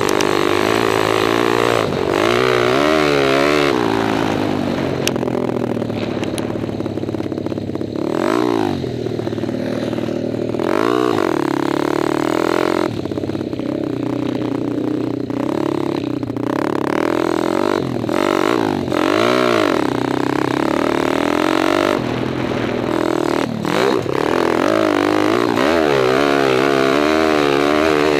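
Kawasaki KLX 177 stroker dirt bike's single-cylinder four-stroke engine being ridden hard, its revs rising and falling again and again as the throttle opens and closes.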